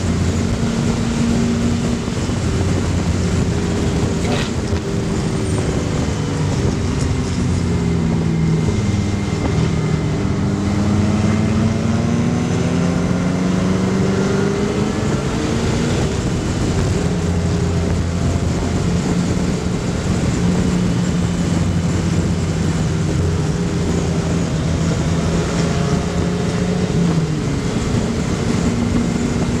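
Race car's GM 5.3-litre LS V8 engine running at speed on track. The revs fall for a few seconds about five seconds in, climb back up, hold steady for around ten seconds, then dip and rise again near the end, over a steady rush of wind across the roof.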